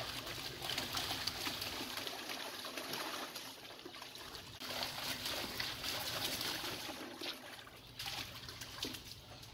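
Water splashing irregularly as an American Eskimo dog paws and digs at the water in a plastic kiddie pool, over the steady trickle of a garden hose running into it.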